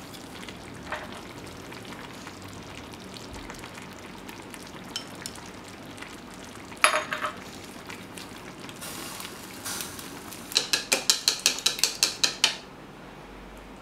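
Sukiyaki broth simmering in a clay pot with a soft, steady sizzle. A short clatter comes about seven seconds in, then a quick run of sharp clicks, about six a second, for two seconds before it stops suddenly.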